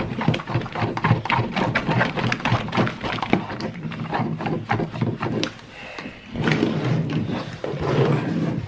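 Sticky homemade glue slime being squished and stretched by hand, giving rapid wet clicks and pops, with a brief lull about six seconds in.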